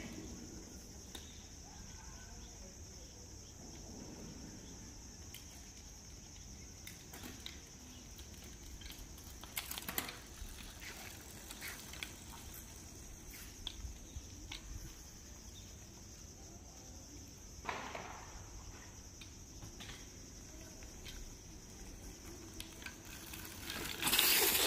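Faint outdoor background with a steady high hiss and scattered light clicks. Near the end comes a loud, brief scraping burst as the Hercules Top Gear FX200 bicycle skids to a stop on concrete, its V-brakes locking the tyre.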